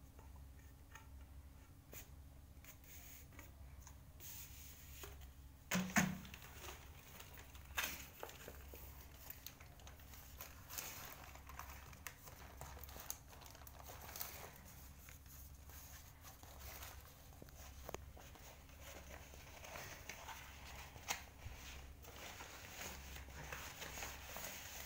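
Faint rustling and crinkling of a plastic courier bag and the wall sticker's paper sheet as the rolled sheet is pulled from its cardboard tube and unrolled, with two sharper knocks about six and eight seconds in.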